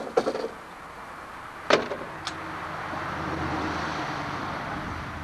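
A few clicks and a sharp knock, then a vehicle passing by, its rushing sound and low hum swelling and fading over a few seconds.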